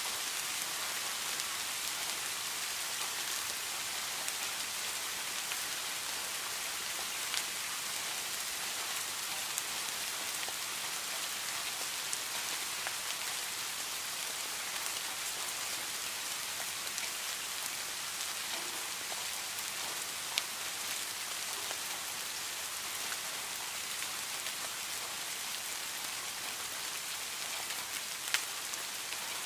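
Steady rain falling on garden foliage: an even hiss, with a few sharper single drop hits now and then.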